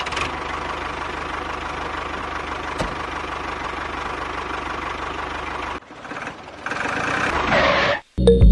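Small DC electric motor of a DIY model tractor/chaff cutter running steadily with a faint whine. It stops about six seconds in, then runs again more loudly before cutting off.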